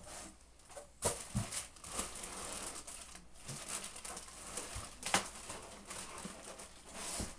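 Packing material rustling and crinkling, with a few sharp knocks and bumps, as a desktop computer tower is worked loose from its tight-fitting box packing.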